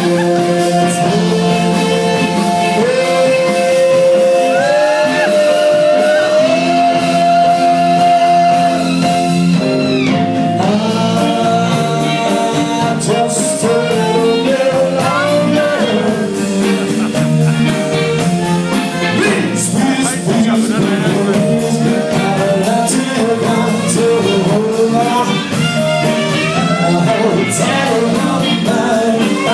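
A song with singing over guitar and a steady beat.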